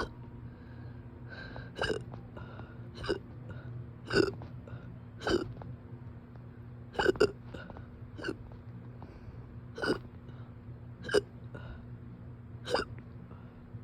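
A person hiccuping over and over: short, sharp hiccups about every one to one and a half seconds, with two in quick succession about seven seconds in. These are persistent hiccups.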